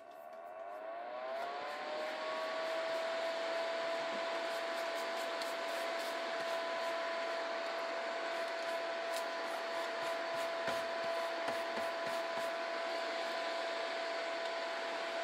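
DoLike nail dust collector's fan running on its lower power setting: it spins up with a rising whine over the first second or two, then holds a steady whoosh with a steady whine. A scatter of light clicks comes through the middle.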